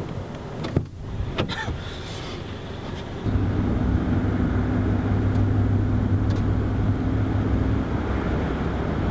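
A car driving, heard from inside the cabin: steady engine and road drone with a low hum, which gets louder about three seconds in. Two sharp knocks come in the first two seconds.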